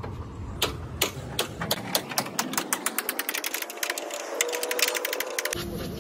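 Ratchet wrench clicking as bolts are worked inside a steel truck cab door. There are scattered clicks at first, then a quick run of many clicks from about three seconds in, stopping shortly before the end.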